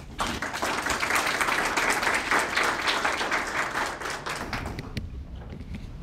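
Small audience applauding, starting at once and dying away about five seconds in.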